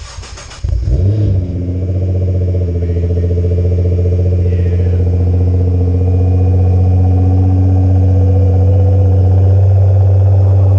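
Nissan GT-R R35's twin-turbo VR38DETT V6 cold-started through a new HKS mid pipe and Manzo titanium-tipped axle-back exhaust. The starter cranks for under a second, the engine catches with a loud flare, then settles into a steady, low-pitched idle.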